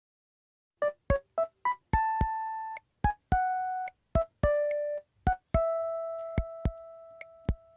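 Background music starting about a second in: a simple electric-piano melody of short plucked notes, a few held and fading, each struck with a sharp click.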